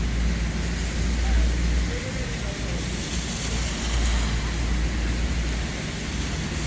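Steady traffic noise on wet, flooded streets: a continuous hiss of tyres and rain over an uneven low rumble.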